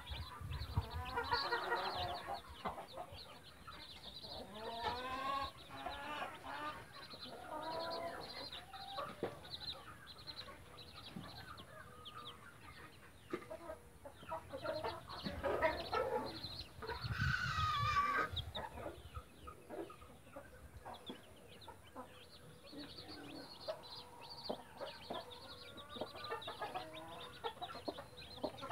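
A mother hen clucking among her brood, with chicks peeping in short, high calls throughout. One louder, higher call stands out about seventeen seconds in.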